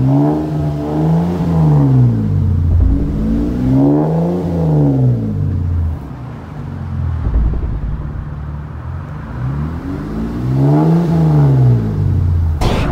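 2018 Jeep Cherokee Trailhawk's 3.2-litre V6 through a split dual exhaust with a Street Demon performance muffler in place of the stock suitcase muffler, revved in neutral three times, each rev rising and falling back. It settles to idle for several seconds between the second and third revs.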